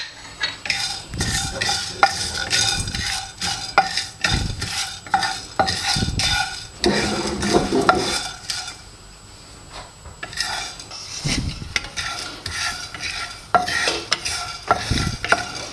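Flat wooden spatula stirring and scraping whole spices (bay leaf, cinnamon, cloves, peppercorns, fennel seeds) around a dry non-stick pan: a busy run of scrapes and light knocks, with a lull of about two seconds near the middle. The spices are being dry-roasted with no oil.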